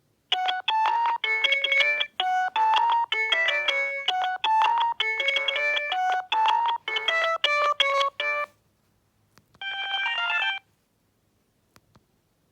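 Alcatel OT-E158 mobile phone's built-in ringtone: a fast electronic melody of short, bright notes for about eight seconds, stopping abruptly, then a brief separate run of a few notes about a second later.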